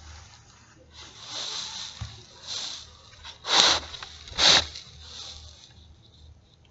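A person breathing noisily through the nose close to the microphone: a few short breaths, the two loudest about three and a half and four and a half seconds in.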